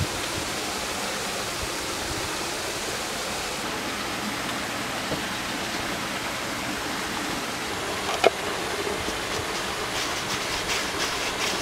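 Steady, even rushing noise of outdoor ambience. A brief squeak comes about eight seconds in, and a few light clicks come near the end.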